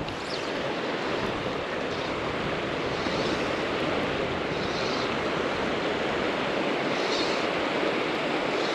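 South Platte River water rushing steadily.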